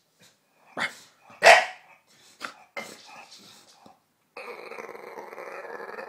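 English bulldog giving two sharp barks about a second in, then a few softer short sounds. Just past halfway it breaks into a long, continuous growl that keeps going.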